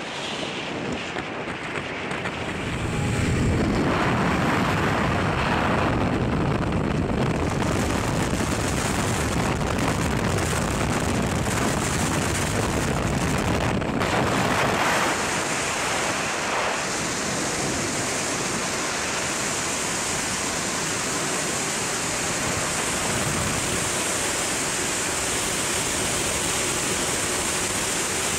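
Wind rushing over a helmet-mounted camera's microphone: the slipstream at the aircraft door, then steady wind noise in freefall after the team leaves the aircraft about halfway through.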